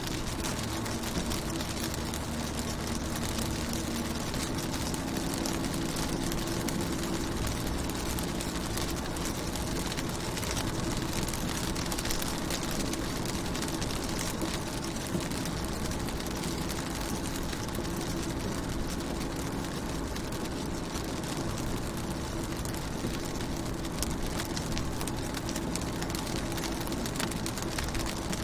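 Steady rain falling on a car's windows and body, with a steady low drone underneath it.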